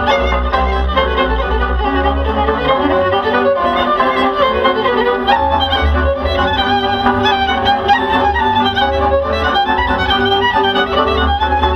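Lively Romanian folk dance music led by a fiddle, with a steady pulsing bass beat, played over the stage loudspeakers.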